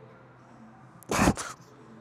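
A single short, forceful exhale about a second in: a lifter's breath pushed out hard through the mouth during a heavy rep.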